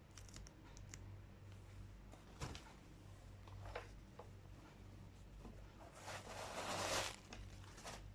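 Packaging being handled during a shoe unboxing: scattered light taps and rustles, then a louder crinkling rustle or tear of paper lasting about a second near the end.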